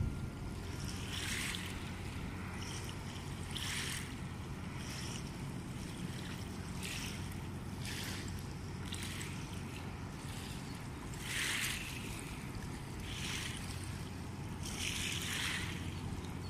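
Steady low drone of an inland tanker barge's diesel engine. Short, irregular swishes of wind and small waves lapping at the riverbank come every second or two.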